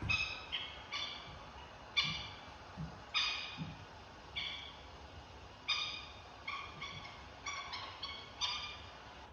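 A bird calling: a series of short, pitched, harsh-toned calls, about fifteen in nine seconds, irregularly spaced and some in quick pairs.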